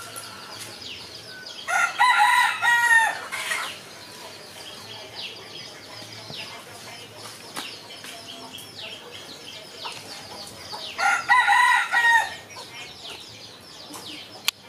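A rooster crowing twice, about nine seconds apart, each crow a long call of roughly two seconds. Short, high falling chirps go on throughout.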